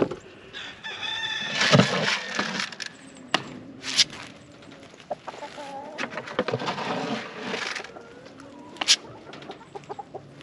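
Rooster crowing once, a long call from about a second in, followed by chickens clucking, with several sharp knocks scattered through.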